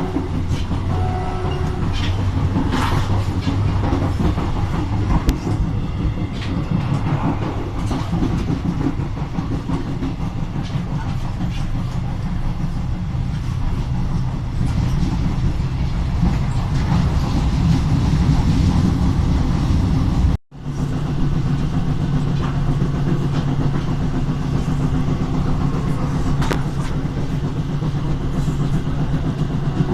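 Train under way behind SNCFT diesel locomotive 040-GT 566: a steady engine drone with rolling and rail noise. About two-thirds of the way through, the sound drops out for an instant at a cut, then the drone carries on with a slightly different pitch.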